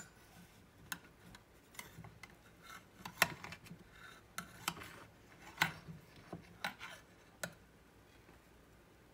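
Metal spatula scraping and tapping against a glass baking dish while a square of cornbread is worked loose: a string of short clicks and brief scrapes, the sharpest a little after three seconds and about five and a half seconds in.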